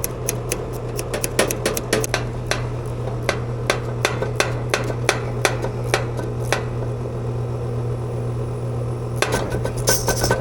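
Ratcheting service-valve wrench clicking stroke by stroke as a refrigerant service valve stem is turned, over the steady hum of the running air conditioning unit. The clicks stop about two-thirds through, and near the end a hiss starts: refrigerant leaking at the valve.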